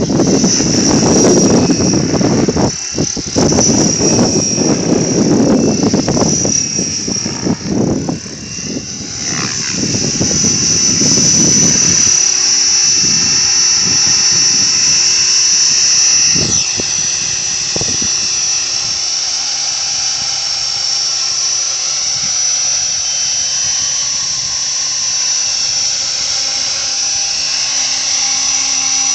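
550-size radio-controlled helicopter in flight, with a steady high whine from its rotor and drivetrain. Heavy wind buffets the microphone for about the first twelve seconds, then eases.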